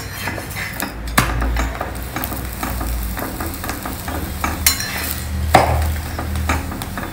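Paratha sizzling in ghee on a hot iron tawa while a spatula presses and pushes it around the pan, with a few sharper scrapes of the spatula against the iron.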